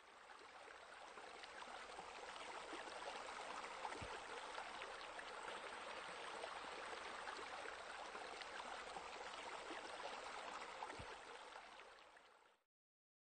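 Running, splashing water, a steady crackling rush that fades in at the start and fades out near the end.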